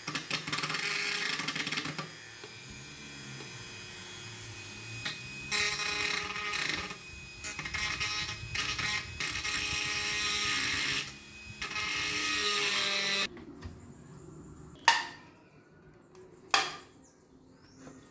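Dremel 4000 rotary tool spinning an orange grinding stone against the rusty metal clock case, a high whine that swells and eases in bouts as the stone bears on the metal, grinding off rust. It stops about two-thirds of the way through, followed by two sharp knocks as the metal case is handled.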